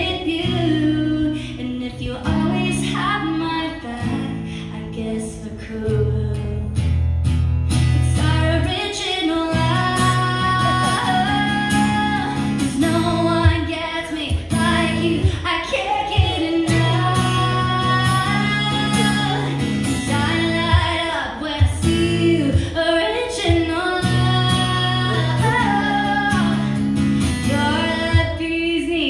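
Live pop-country song: a woman singing lead into a microphone while strumming an acoustic-electric guitar, backed by a band with a heavy, sustained bass line.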